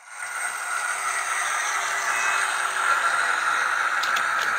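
Sound decoder in an HO-scale SD9 model diesel, playing through its small speaker as the loco runs by at speed. It cuts in sharply into a loud, steady air hiss with a couple of steady whistling tones: the train brake being applied. A few faint clicks come near the end.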